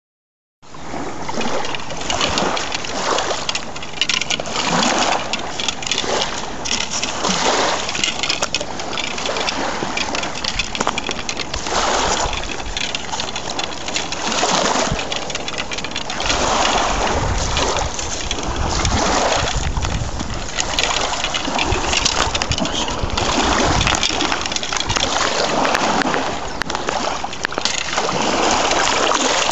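Shallow sea water washing over a sandy shore, swelling and easing every couple of seconds, with a deeper rumble about halfway through.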